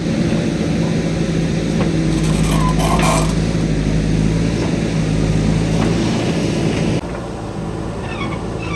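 Diesel engine of a JCB backhoe loader running steadily at working revs, with a brief squeal about three seconds in; the sound changes and drops in level abruptly about seven seconds in.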